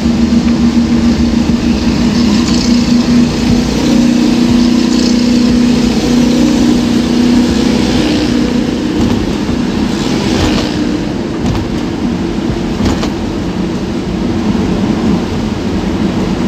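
Vehicle engine running steadily while driving in traffic, a low hum over road noise, with a few brief sharper noises about two-thirds of the way through.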